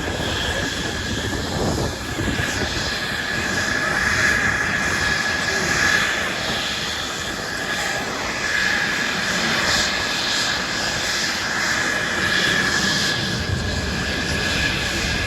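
Airplane engine running steadily as the aircraft flies, a continuous drone with a held high tone that swells and eases a little.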